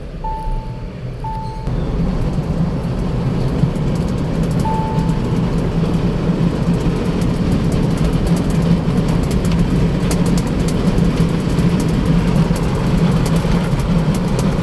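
Mahindra Thar at high speed: a steady, loud low drone of road and wind noise, the high-speed noise problem, which steps up about two seconds in. A dashboard chime beeps twice at the start and once more about five seconds in.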